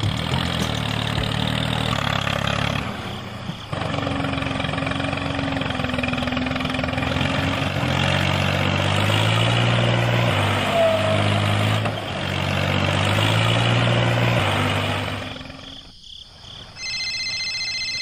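Mini tractor's motor noise running steadily, with a low hum stepping up and down in pitch as it hauls a loaded trailer bogged in sand. The noise dies away about sixteen seconds in, and a high electronic beeping follows near the end.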